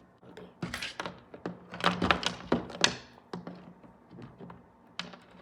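Small plastic toy figures being handled and set down on a hard surface: a run of clicks and knocks, busiest from just under a second in to about three seconds, with another sharp knock near the end.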